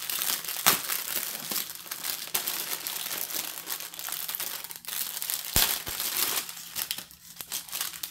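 Clear cellophane wrap crinkling and crackling as it is pulled off a bundle of small plastic packets of diamond-painting drills, with a couple of sharper crackles.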